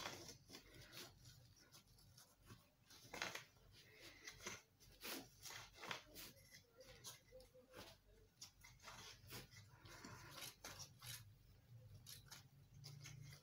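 Faint rubbing and scraping of a cloth wiped back and forth over a flatbed scanner's glass, with irregular small clicks.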